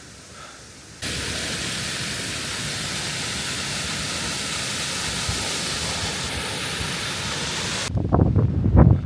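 Steady rushing hiss of a fast mountain stream cascading down a gill, cutting in suddenly about a second in. Near the end it gives way to low, gusting rumble of strong wind buffeting the microphone.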